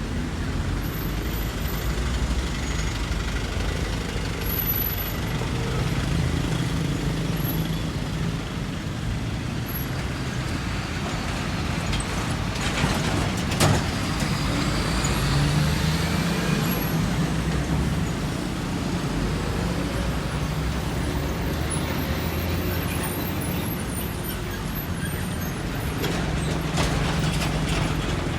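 Heavy trucks passing on a road: steady low engine rumble and traffic noise, with a short sharp sound about halfway through.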